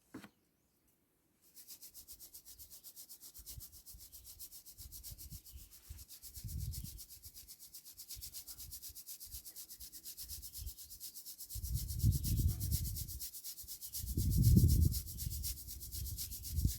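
Crushed ore being shaken through a fine-mesh kitchen strainer, a fast, even rhythmic gritty scraping of rock grains over wire mesh that starts after a brief quiet moment. Several louder dull bumps come in later, the heaviest near the end.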